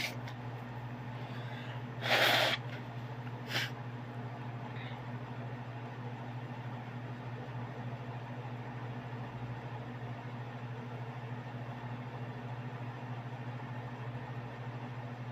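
A steady low hum runs throughout. About two seconds in it is broken by a short breathy burst, and a second later by a brief sharp hiss.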